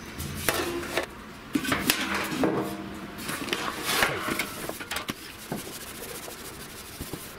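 Hands and a rag rubbing and scraping over a primed sheet-steel car body panel, with irregular knocks and clatter of the metal and a plastic solvent bottle being handled. This is the wiping stage of a solvent test with 647 thinner on the factory primer.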